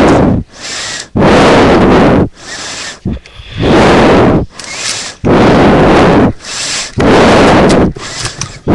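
Loud, distorted blasts of breath noise on a close webcam microphone, about five of them, each under a second long and evenly spaced like slow breathing.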